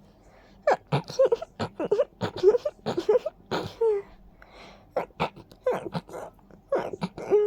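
A person sneezing over and over in quick succession: a rapid run of many small, short sneezes, starting about a second in, with a brief lull about halfway through.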